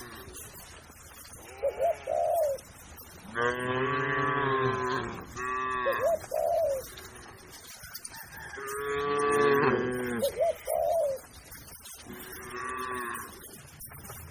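Cattle mooing: two long, drawn-out moos a few seconds apart, then a shorter, fainter moo near the end. Between the moos, doves coo in short repeated phrases.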